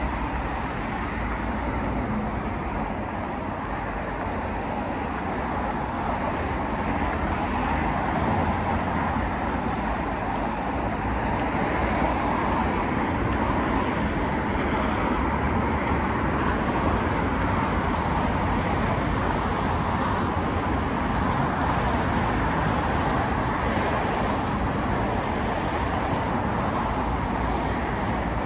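Steady road traffic noise from cars driving along a wide city road, getting a little louder a few seconds in.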